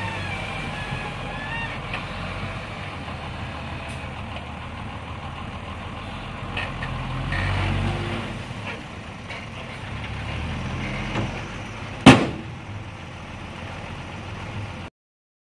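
Dump truck engine running with its bed raised as a load of dirt slides out, and one sharp loud bang about twelve seconds in. The sound stops abruptly near the end.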